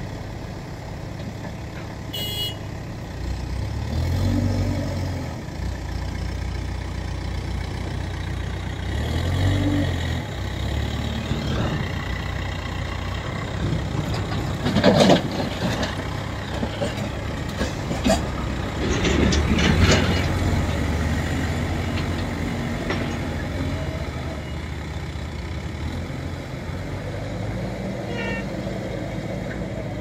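JCB backhoe loader's diesel engine running and revving up as it works the hydraulics, with a couple of louder bursts of noise about halfway through.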